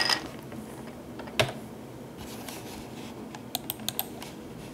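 A few light, sharp clicks and taps: one about a second and a half in, then a quick run of lighter clicks near the end.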